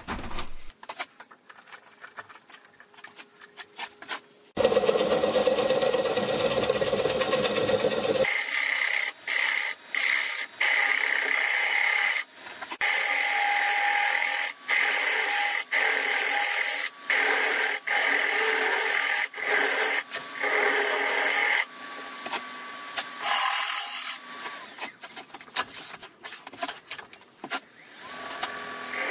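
Bowl gouge cutting wood on a spinning lathe as the foot of a bowl is turned, broken by many abrupt stops and starts. A louder, lower-pitched stretch of cutting comes a few seconds in.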